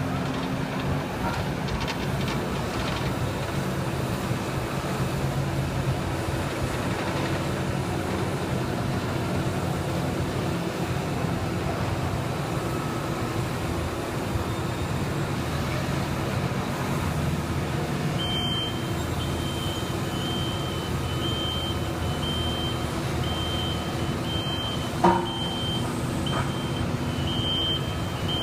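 Diesel engine of heavy construction machinery running steadily. About two-thirds of the way in, a backup alarm starts beeping repeatedly, and there is one loud metallic knock near the end.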